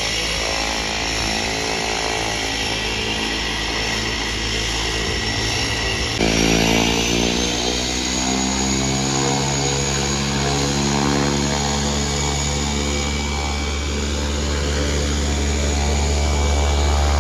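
Cessna Caravan's Pratt & Whitney PT6A turboprop running as the plane taxis past, a high steady turbine whine over a buzzing propeller drone. About six seconds in the sound jumps louder, the whine slides upward, and a low drone grows steadily toward the end as the aircraft comes close.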